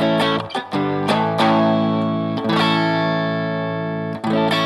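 Electric guitar, a Fender Telecaster, strumming chords through a BOSS GT-1000 low-gain Vox amp model into a Two Notes Cab M, with the compressor just switched off. There are about five strums, each chord left to ring.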